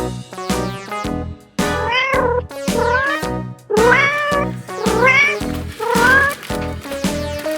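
Cat meowing repeatedly: about five rising-and-falling meows roughly a second apart, over background music with a steady beat.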